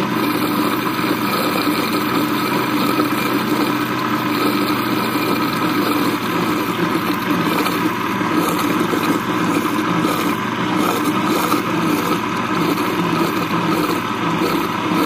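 Electric blender motor running steadily at one constant speed, whirring through a jar of oil and powdered sugar.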